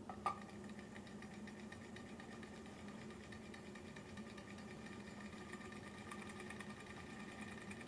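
Sunnytech low-temperature Stirling engine running on a mug of near-boiling water, its flywheel spinning fast: a faint, steady mechanical whirr with quick, light ticking, not very loud. A short click comes just after the start, as the flywheel is flicked into motion.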